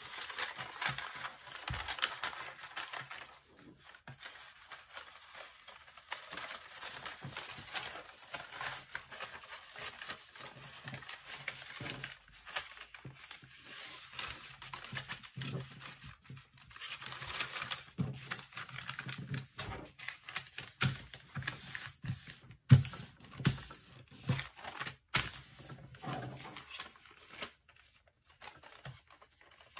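Origami paper rustling and crinkling as it is folded and pressed by hand, in irregular bursts. There are a few sharp clicks in the second half.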